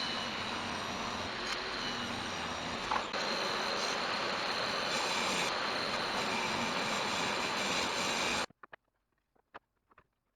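Home-built CNC router's spindle motor running with a steady high whine, a little louder from about three seconds in, then stopping suddenly.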